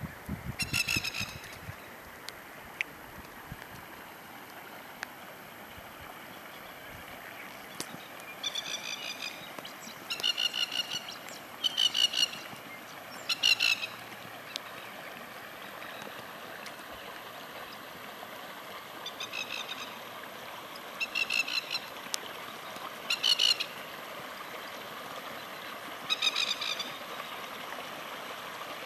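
A bird gives short, rapid chattering calls about nine times, in bunches, over a steady wash of rain and running floodwater.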